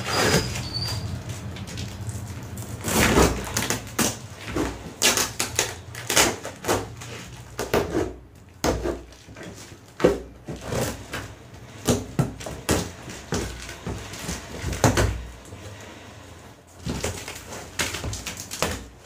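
Brown packing tape being ripped and cut off a sealed cardboard box: irregular tearing, scraping and knocking on the cardboard, with the box flaps pulled open near the end.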